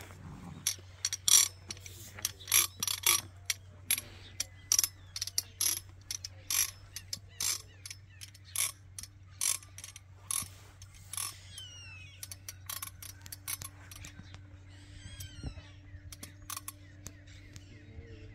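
A horse working the roller of its coscojero curb bit with its tongue, a run of irregular metallic clicks and rattles that grow sparser after about twelve seconds.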